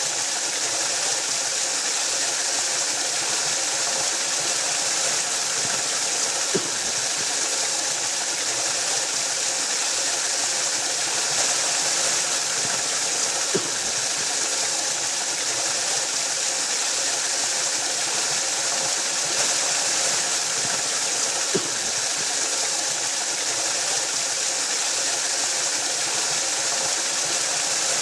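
Waterfall: a steady, even rush of falling water with a bright, hissy edge. A faint soft thump is heard about every seven seconds.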